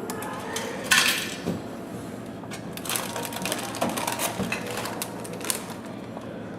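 Vending machine clicking and clunking as it is used: a loud clunk about a second in, then irregular clicks and rattles.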